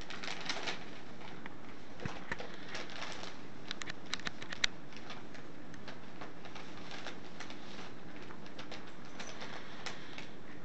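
Newspaper ad sheets rustling and crackling as a cat rolls and squirms on them, in scattered runs of small crackles with the sharpest one about four and a half seconds in, over a steady faint hiss.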